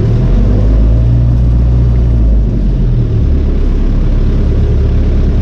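Belarus MTZ 892 tractor's four-cylinder diesel engine pulling away in third gear, low range, heard from inside the cab, the gear having gone in without grinding. The engine note dips briefly and shifts about two and a half seconds in.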